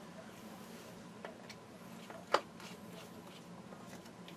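Two light clicks of small hardware being handled, the second, about two seconds in, sharper and louder, over a faint steady hum.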